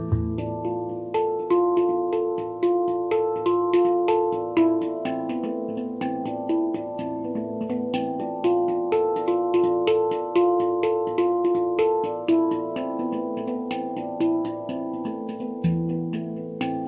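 Baopan handpan with an A2 low note, played with the fingers: a quick, steady run of struck notes that ring on and overlap into a melody, with the deep low note sounding again near the end.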